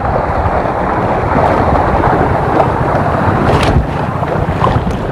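Wind buffeting the microphone over open water, a steady loud rumble, with one short sharp sound about three and a half seconds in.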